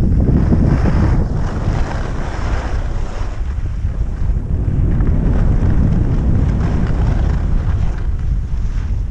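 Wind rushing over the microphone of a camera carried by a skier moving downhill: a loud, even low rumble.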